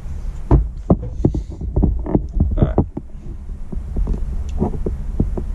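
Small metal clicks and taps as a flathead screwdriver works the main jet out of a Kawasaki KLX125 carburetor, most of them in the first three seconds, over a steady low hum.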